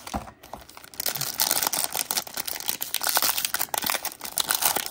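Foil wrapper of a Panini Mosaic basketball card pack crinkling and crackling as it is torn open by hand. The crackle starts about a second in and carries on as a dense patter of small clicks.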